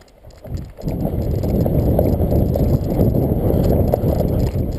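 Loud, rough rumble of wind and handling noise on a body-worn action camera's microphone as the wearer runs, starting about half a second in.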